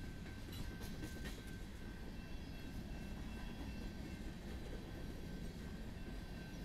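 Loaded covered-hopper freight cars rolling past, a steady rumble of steel wheels on the rails. A few sharp clicks come about a second in, over a thin steady high tone.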